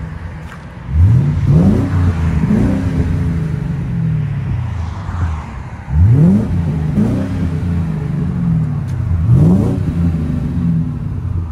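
Ford Crown Victoria 4.6-litre V8 through a Borla Touring cat-back dual exhaust with an H-pipe, blipped up from idle in three rounds of quick revs, each rev rising sharply and sinking back to idle.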